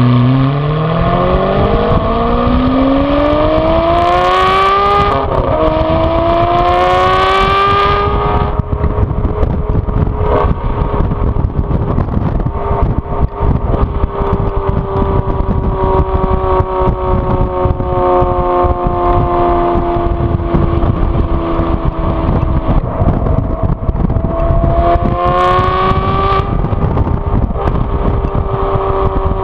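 The 6.0-litre V12 of a 2014 Aston Martin V12 Vantage S, modified with VelocityAP's Power Pack, pulling hard under acceleration. Its pitch climbs, dips at an upshift about five seconds in and climbs again. About eight seconds in it comes off the throttle and runs at part throttle with the pitch slowly falling, then pulls briefly again near the end.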